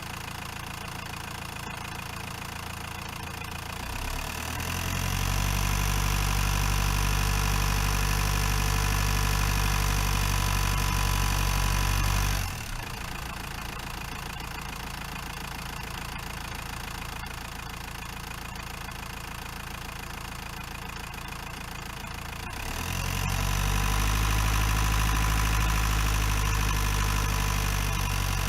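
Renault Master 2.8 dTi van's four-cylinder turbodiesel engine running at a low, steady speed. About four seconds in it speeds up and holds a steady, louder pitch, drops back suddenly near the middle, then speeds up and holds again near the end.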